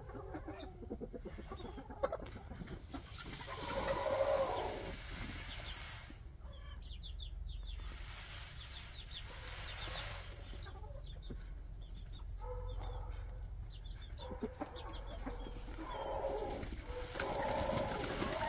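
Chickens clucking, louder about four seconds in and again near the end, with quick high chick peeps now and then.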